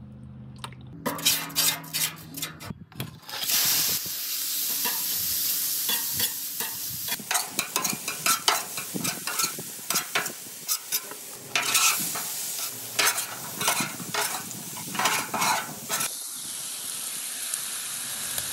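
Chicken pieces sizzling on the flat top of a LoCo Smart Temp griddle, a steady frying hiss. Through the middle a metal spatula scrapes and taps repeatedly against the griddle surface as the food is turned, and near the end only the sizzle remains.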